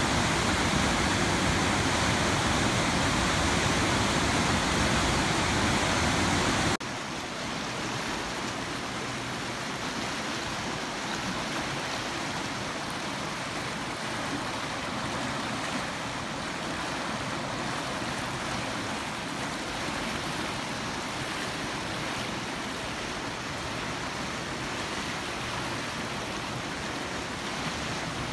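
Steady rush of running water. About seven seconds in it cuts abruptly to a quieter, thinner rush with less low rumble.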